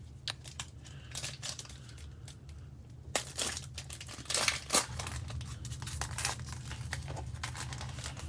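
Plastic trading card pack wrapper being torn open and crinkled by hand: a run of irregular crackles and rustles, loudest about three to five seconds in.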